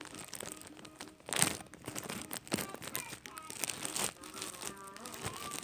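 Plastic slime packaging crinkling and rustling as it is handled, with a louder crackle about one and a half seconds in.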